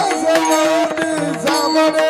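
Kirtan music: held melodic notes with some gliding pitches over frequent hand-drum strokes.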